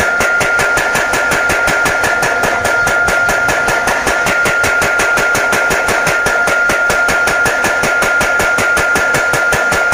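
Mechanical power hammer pounding hot steel at a fast, even rhythm of several blows a second, with a steady high tone over the blows.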